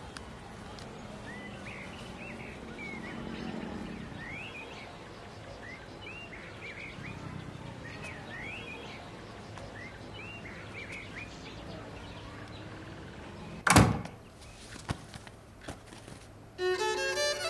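Faint bird chirps over a low steady background hum, then a single loud thud as a box is set down on a table, followed by a few small knocks. Violin music comes in near the end.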